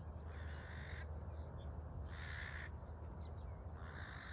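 Crows cawing: three harsh caws roughly a second and a half apart, with a faint quick run of higher bird notes between the last two, over a steady low rumble.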